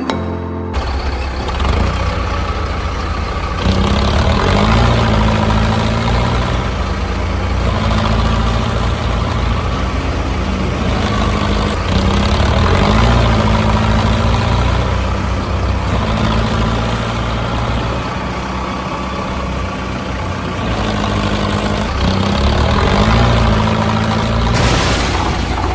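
Heavy truck engine sound effect running with a steady low rumble, its pitch rising briefly every few seconds as if revving, in a repeating loop.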